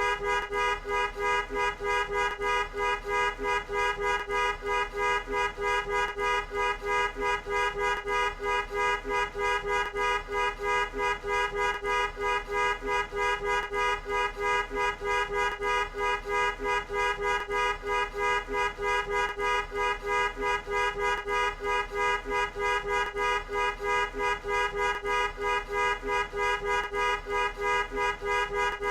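Car horn sounding without a break, two notes at once, its loudness pulsing in a fast, even rhythm of about two to three beats a second.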